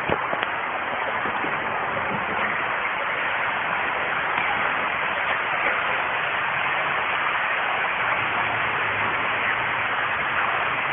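Shallow stream water running over a rocky bed, a steady rushing hiss.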